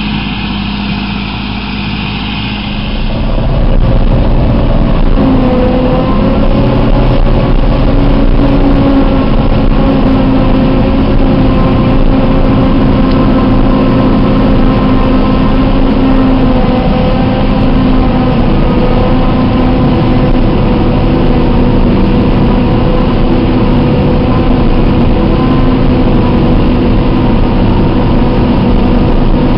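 John Deere self-propelled forage harvester working with its six-row maize header: a steady engine and cutting-drum drone with a whine running through it. The sound is quieter and more distant for the first few seconds, then becomes loud and close from about four seconds in, as heard aboard the machine while it cuts maize.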